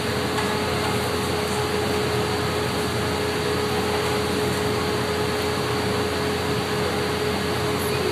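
Glassblowing furnace and its air blower running: a steady rushing noise with a constant mid-pitched hum.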